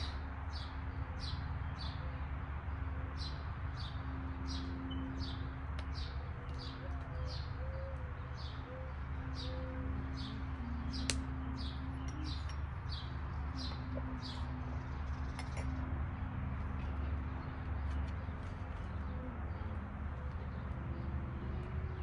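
A bird calling with a short, high, falling chirp repeated about twice a second, which stops about fourteen seconds in. A steady low rumble runs underneath, with a single sharp click around the middle.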